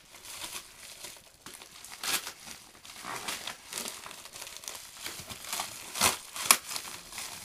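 A taped-up mailing package being crinkled and torn open by hand. The crackling is irregular, with sharp rips about two seconds in and twice near the end; the last rip is the loudest.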